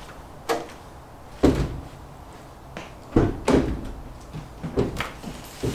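A series of about seven heavy clunks and knocks at uneven intervals, the loudest about a second and a half in and again about three seconds in.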